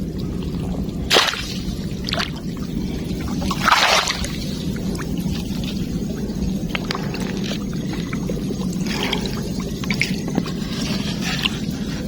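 Water pouring and splashing over a steady low rush of flowing water, with louder splashes about a second in and near four seconds.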